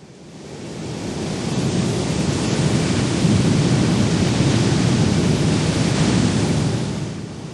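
A steady rush of stormy wind and sea surf. It swells up over the first couple of seconds and eases off near the end.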